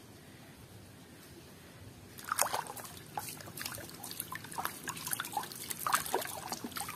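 A hand swishing and splashing in a tub of water, washing a toy. It is quiet for about the first two seconds, then there are many irregular small splashes and sloshes.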